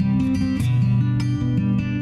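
Background music: guitar strummed and plucked, with a changing run of low notes.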